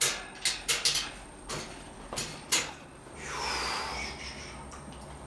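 Wet hands working clay on a spinning potter's wheel: a run of sharp wet clicks and slaps in the first two and a half seconds, then a longer wet swish about three seconds in.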